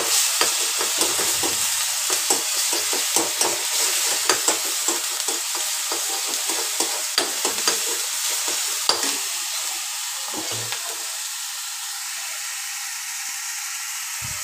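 Onion paste sizzling as it fries in hot oil in a kadhai, stirred with a metal spoon. The spoon scrapes and clicks against the pan for roughly the first nine seconds. After that the stirring stops and the sizzle goes on a little quieter.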